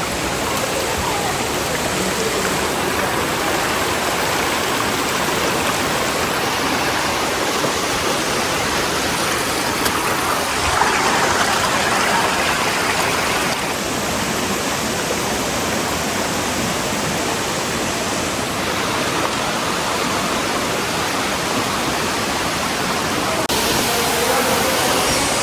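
Steady rush of a waterfall's falling water, swelling slightly about halfway through.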